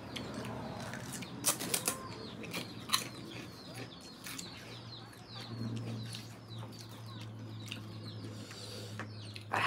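Small birds chirping over and over in the background, with a few sharp crunches between about one and a half and three seconds in as crisp puri shells are bitten. A low hum rises in the middle.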